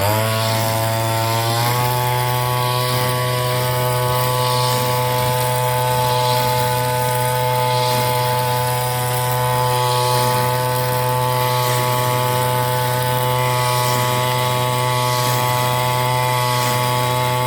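Brush cutter engine revving up from a lower speed to full throttle over about a second and a half, then running steadily at high speed.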